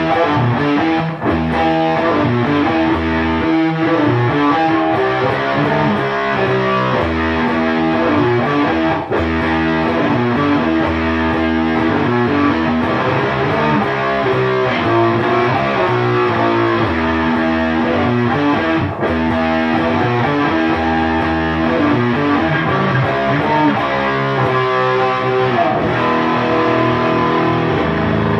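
Electric guitar, a Gibson Les Paul, played through an EarthQuaker Devices Black Ash fuzz pedal into an Orange tube amp head and a 2x12 cab, with a continuous run of riffs and chords. There are short breaks about a second in, around nine seconds in and near nineteen seconds in.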